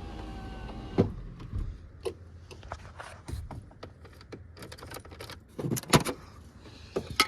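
Keys jangling and scattered clicks and knocks from an OBS Ford truck's ignition and cab, with no starter cranking and no engine running: a no-crank, no-start.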